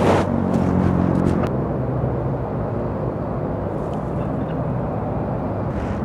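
Yamaha MT-09's inline-three with a Yoshimura R55 slip-on exhaust, running off the throttle at a quieter, steady note under wind noise. A short rush of noise comes right at the start, and a few sharp crackles follow in the first second and a half.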